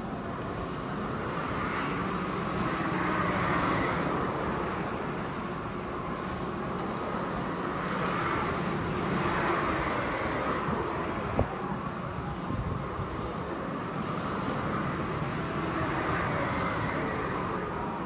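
Outdoor carnival ambience: a steady mechanical din that swells and fades about every six seconds, with a single sharp click a little past the middle.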